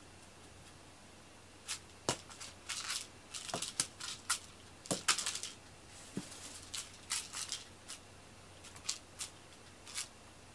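Cat teaser wand and its string toy being flicked and dragged about, making irregular short rustles and light clicks. They start about two seconds in and come in quick clusters until near the end.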